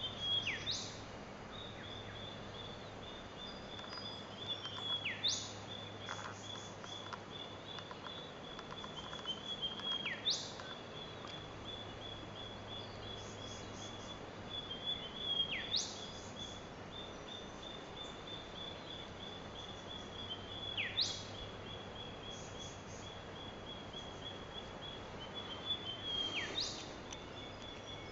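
Australian bush birds calling: a steady, rapid, high trill, and about every five seconds a sharp whistle that sweeps steeply in pitch like a whip-crack.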